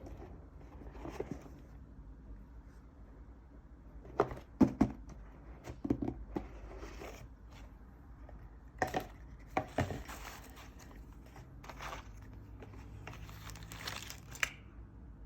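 Keyboard packaging being handled and opened: the box and its wrapping crinkling and rustling, with irregular knocks and taps, the loudest about four to five seconds in and again near ten seconds.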